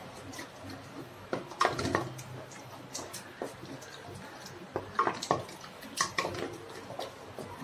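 Wooden spatula scraping and knocking against a metal kadai as eggs are stirred and scrambled, with a steady sizzle of the eggs frying in oil underneath. The knocks come in small clusters, several times.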